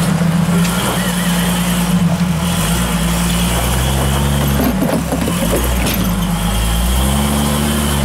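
Jeep CJ-8 Scrambler's engine running at low revs as it crawls up over boulders, its pitch dropping and rising a few times as the throttle is worked.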